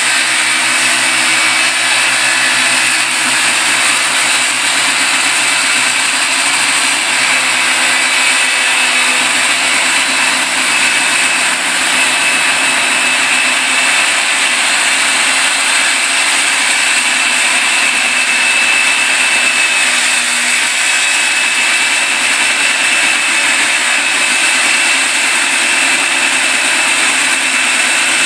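Porter-Cable corded circular saw running steadily under load as it cuts across the bottom of a mahogany door, a loud continuous whine without a break.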